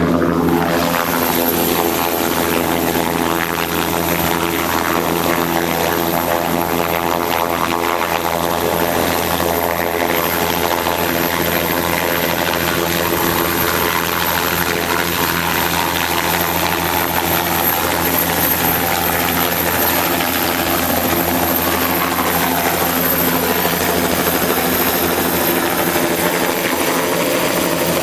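Helicopter running: a steady loud drone of turbine and rotor noise, with several held tones over it.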